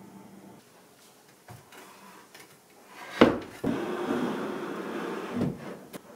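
A wood-framed sofa being moved: a sharp knock, then about two seconds of the sofa sliding and scraping across the floor, ending in a bump and a small click.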